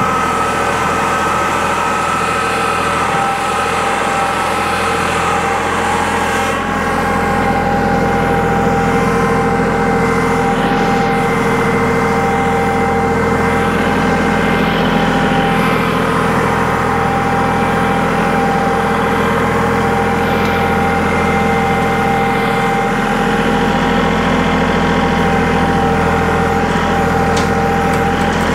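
Compact tractor with a front loader and backhoe, its engine running steadily as it works moving dirt.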